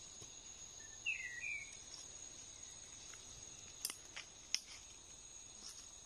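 Steady high-pitched chorus of crickets, with a short chirp about a second in and three sharp clicks a little past the middle.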